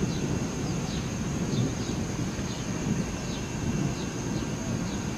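Distant thunder rumbling low and steady, with short high chirps of a bird repeating faintly about every half second.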